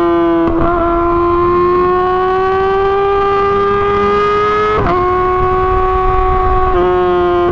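Yamaha R6 inline-four sport bike engine through an Akrapovic exhaust, running at high revs under way. Its pitch climbs slowly while it accelerates in gear, with quick breaks in the sound about half a second in and near the end. About five seconds in there is a clear shift, where the pitch drops and then holds steady.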